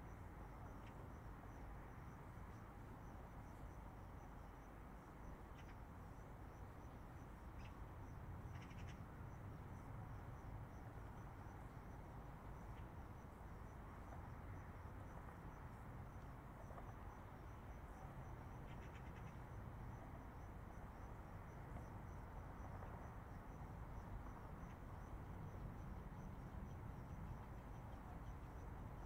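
Crickets chirping in a fast, even, continuous pulse over a steady low rumble of distant highway traffic, with a few short high chirps here and there.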